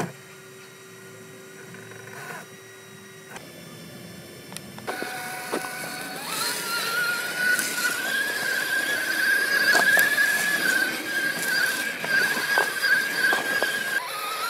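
Axial SCX6 RC crawler's electric motor and gearbox whining steadily as it drives over rock, with scattered sharp clicks. The first few seconds are quieter. The whine comes in about five seconds in, rises slightly and then holds.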